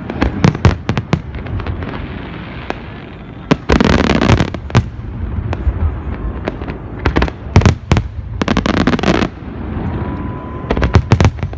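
Fireworks exploding in a dense series: repeated sharp bangs with short stretches of rapid crackling, over a steady low rumble of the display.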